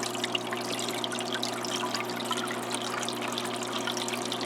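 Small aquarium waterfall trickling and splashing over a flat stone into the water below, a steady patter of droplets, over a steady low hum.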